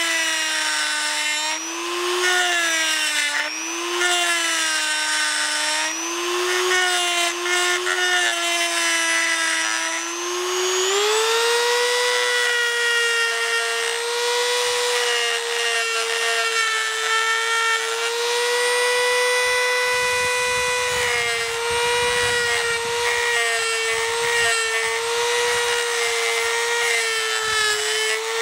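Dremel rotary tool spinning an EZ Thread 60-degree diamond-coated burr along the threads of an oil plug, cleaning up threads that were battered and rolled over. A high motor whine that wavers in pitch for about the first ten seconds, then rises and holds higher and steadier.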